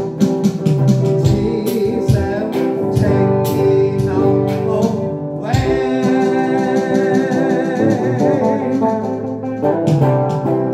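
Small live band playing a Cantonese pop song: a man sings into a microphone over electric guitar and a drum kit, with drum strikes all through.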